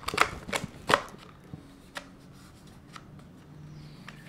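Chain-bar cover being fitted onto a Husqvarna Aspire P5 battery pruning saw: a quick run of sharp clicks and knocks in the first second, then a few scattered single clicks.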